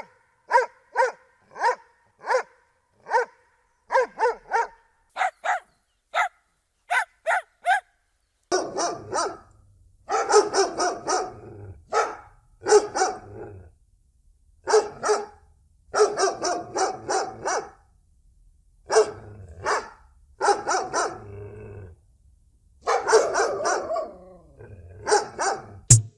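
Dog barking: a run of short, evenly spaced single barks, then from about a third of the way in louder, rougher barks coming in clusters with pauses between.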